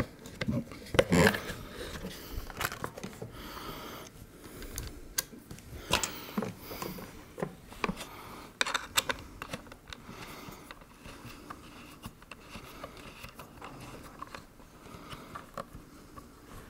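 Irregular plastic clicks, taps and rattles as a black polymer front grip is worked onto the accessory rail of a G&G UMG airsoft submachine gun replica. The louder knocks come about a second in and again around six and nine seconds.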